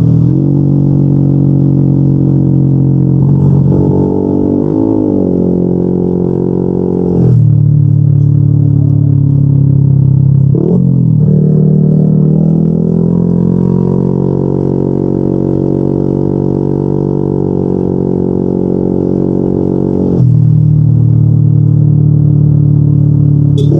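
Yamaha NMAX 155 scooter's single-cylinder four-stroke engine running through a Yoshimura RS2 aftermarket exhaust while riding: a steady deep drone on held throttle. Its pitch drops briefly and comes back three times, as the throttle is eased and reopened, and it gets louder after the first and last of these.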